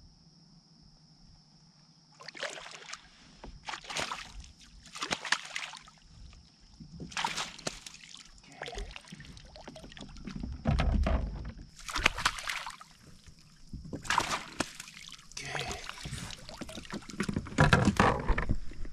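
Water splashing and sloshing in irregular bursts beside a kayak as a hooked bass is played to the boat and netted. A faint steady high tone runs underneath.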